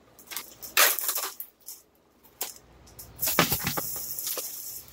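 A few light clicks and knocks of the raw ground turkey being handled, then the block of ground turkey drops into the very hot oiled frying pan with a soft thud about three and a half seconds in, and the oil starts sizzling steadily from then on.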